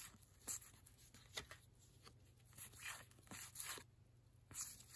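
1990 Upper Deck baseball cards being flipped through by hand, the glossy card stock sliding and flicking against the stack in a series of short, faint swishes.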